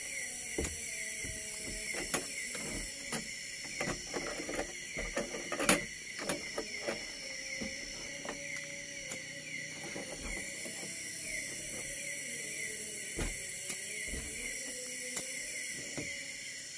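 A steady night chorus of forest insects, with scattered clicks and knocks from gear being handled, thickest in the first half and loudest about six seconds in.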